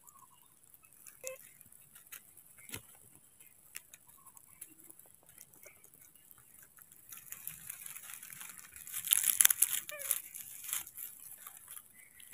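Dry grass and leaf litter rustling and crunching. First a few scattered light crackles, then from about seven seconds in a denser stretch of crackling and crumpling that peaks around the ninth and tenth second and dies down.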